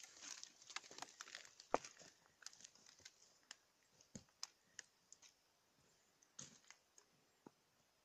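Faint, irregular crunching footsteps on loose gravel and shale, thick at first and thinning out after about three seconds.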